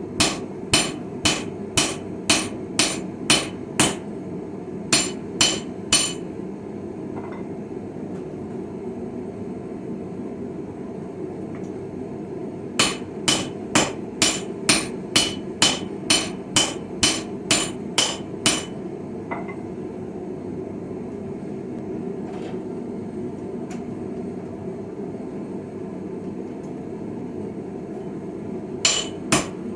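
Hammer blows on hot steel over an anvil while forging a chisel, about two a second, each with a bright metallic ring. They come in runs of several seconds: one at the start, one in the middle and two blows near the end, with pauses between. A steady low rushing noise runs underneath.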